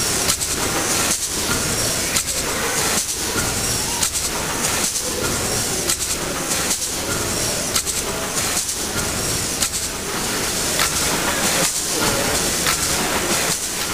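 Steam pumping engine running: a continuous hiss of steam and mechanical clatter, pulsing with a regular beat about once a second.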